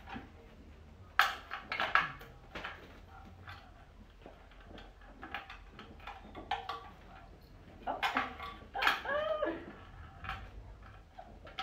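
Puppies yipping and whining, with light clicks and clatter between the calls; a louder run of yips and a whine that rises and falls comes about eight to nine seconds in.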